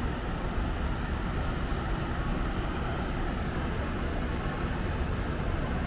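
Distant road traffic heard from high above: a steady, low rumble with no single vehicle standing out.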